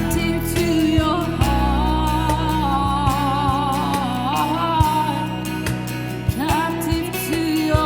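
Worship song with a band: a singer holds long wavering notes over sustained low accompaniment and occasional drum hits.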